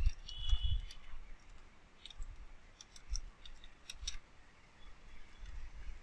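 Computer keyboard typing: several short runs of light key clicks with pauses between them.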